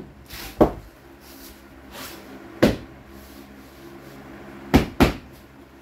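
Hammer knocking on flooring planks to tap them into place: a knock, another about two seconds later, then two quick knocks near the end.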